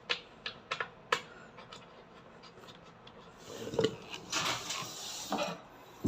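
Screws and the cover panel of a washing machine being handled: a series of light clicks and taps, then about two seconds of rubbing and scraping with a knock in the middle.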